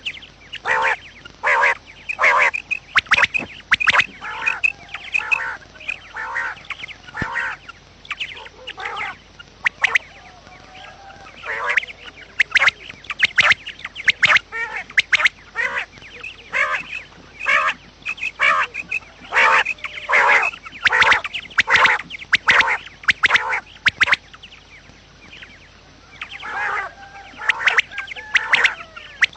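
Quail calling: rapid series of short, sharp calls repeated in clusters, with a few brief pauses between runs.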